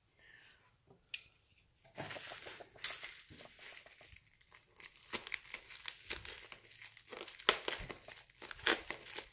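Bubble wrap being cut open with a folding knife and pulled apart by hand, the plastic crinkling and crackling with many sharp snaps. After a faint rustle and a click, the crackling starts about two seconds in.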